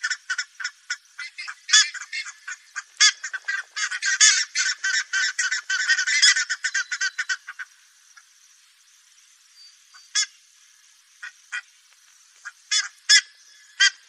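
Buff-necked ibises calling: a fast train of loud, short calls about five a second, coming thick and overlapping, that breaks off about seven and a half seconds in. After a pause a few scattered single calls follow, bunching again near the end.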